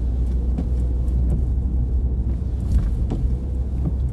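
Car driving, heard from inside the cabin: a steady low rumble from the engine and the road, with a few faint ticks.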